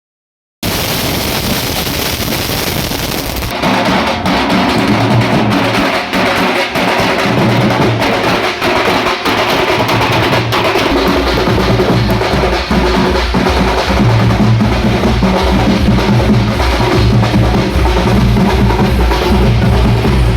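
Drum-heavy DJ remix dance music played loud through a DJ sound system. It opens with a hissing intro, then a drum beat comes in, and about halfway a deep, pulsing bass beat joins.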